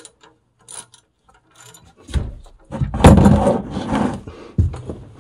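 Socket ratchet wrench clicking as it turns the oil drain plug in the oil pan: a few separate clicks, then a fast run of ratcheting, and a sharp knock near the end.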